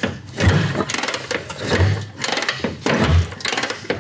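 1947 Harley-Davidson engine being turned over by its kickstarter, three kicks a little over a second apart, each a heavy thump without the engine firing: priming kicks while no fuel is reaching it yet.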